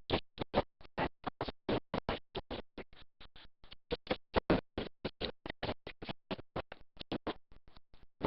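A sound effect of rapid, chopped bursts of noise, about five or six a second, uneven in loudness, like a stuttering scratch.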